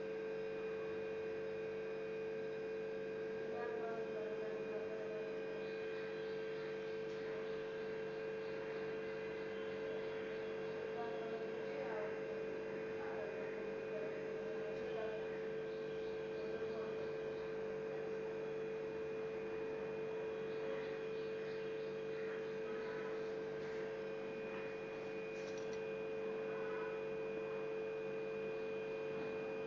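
A steady electrical hum, one constant tone with several fainter ones above and below it, with a few faint, brief sounds over it.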